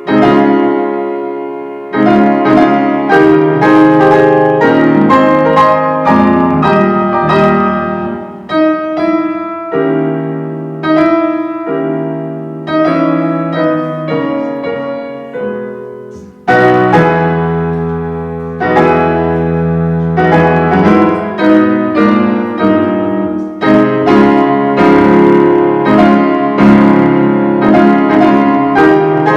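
Solo piano playing a recorded piece of art music: struck chords and melody notes that ring and fade. About halfway through, a louder low chord opens a new phrase.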